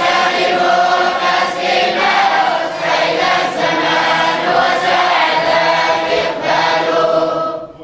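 A group of voices chanting together in unison, which cuts off abruptly just before the end.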